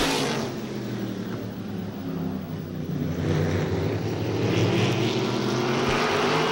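A pack of supermodified race cars with V8 engines under power on a restart. One car passes close right at the start, then the engine notes of several cars overlap and rise and fall as they run down the straight.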